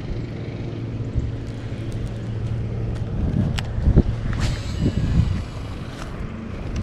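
Strong wind buffeting the microphone, a low rumble that surges in gusts about three to five seconds in. A steady low hum runs underneath, and there are a few sharp clicks.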